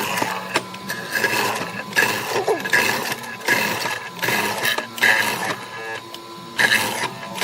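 Woodworking noise: a run of irregular noisy strokes, each about half a second long.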